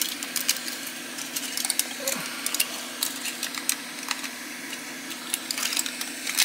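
Aluminium foil crinkling in many short crackles as it is pressed and folded over a circuit board to mask it, over the steady hum of a hot air rework station's fan.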